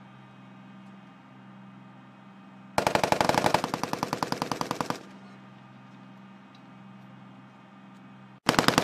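A burst of rapid automatic gunfire lasting about two seconds from an LAV-25 armored vehicle's guns, then a second burst starting near the end. A steady low hum is heard between the bursts.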